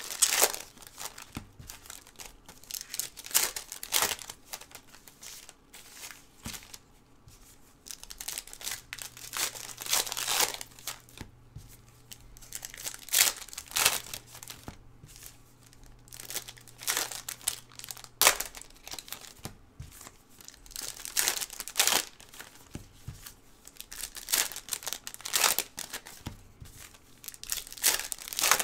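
Foil wrappers of Panini Revolution basketball card packs crinkling and tearing as they are ripped open by hand, one pack after another, in repeated bursts.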